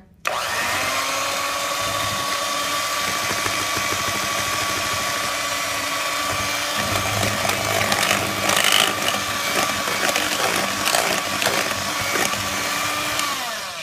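Electric hand mixer switched on and running steadily with an even whine, its beaters blending red food colouring into cake batter in a glass bowl, with scattered clicks in the second half. It winds down, falling in pitch, near the end.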